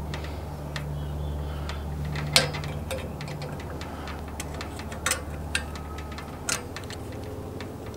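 Scattered sharp metallic clicks and taps of pliers working the bolts of a metal antenna mount bracket, the loudest about two and a half seconds in, over a steady low hum.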